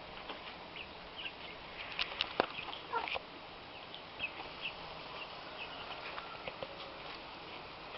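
Chickens and chicks calling: scattered short, high peeps and chirps, a few lower calls around three seconds in, and some sharp clicks.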